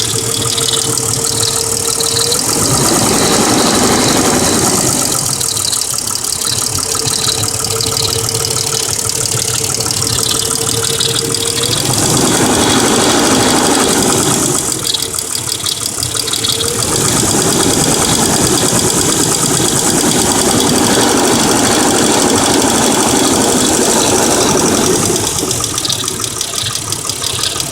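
1999 Mercedes ML320's 3.2-litre V6 running with a rapid lifter ticking, a noise that started after an oil change on this high-mileage engine. The running gets louder and fuller for a few seconds at a time, three times.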